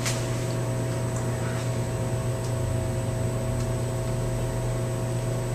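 Steady low electrical hum and room noise, with a few faint light ticks from a small screwdriver working the tiny set-collar screws on an RC helicopter's tail.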